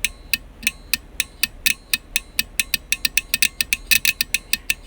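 Small relay rated 10 A at 28 V DC clicking on and off over and over, about four clicks a second at first, then faster from about three seconds in.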